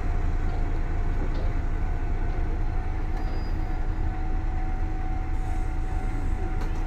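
Two-car diesel railcar train, a KiHa 37 and a KiHa 38, pulling away from a station, its diesel engines running with a steady low rumble and a faint steady whine above it.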